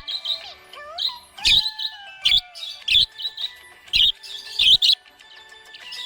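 Small pet parrots chirping: sharp, high chirps repeating roughly every half second to second, with softer sliding whistles and warbles between them.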